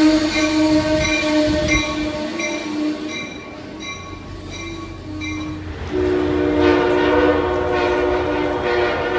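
Train horn sounding a long held chord, with a rhythmic pulsing on top, from the Shore Line East push-pull train's Mafersa cab car as it pulls into the station. The horn breaks up and stops a little past halfway, and a second, different train horn chord starts about six seconds in.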